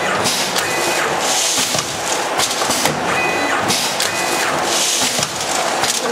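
Four-lane automatic sachet packing machine running, its mechanism clattering in a repeating cycle with sharp clicks. There are two bursts of hiss, about a second and a half in and again near the end.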